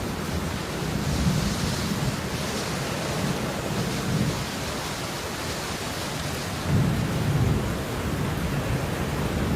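Steady, even hiss of heavy falling rain, with low rumbling swells underneath; the loudest swell comes about seven seconds in.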